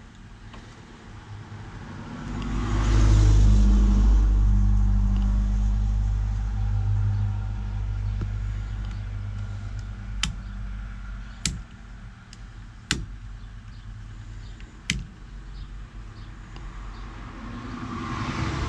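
A motor vehicle's low engine rumble swells up about two seconds in and slowly fades, staying audible underneath. Later come four sharp clicks of small parts being handled.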